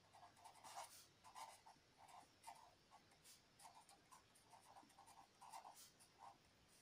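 Faint scratching and squeaking of a marker pen writing words on paper, in many short strokes that follow each other in quick, uneven succession.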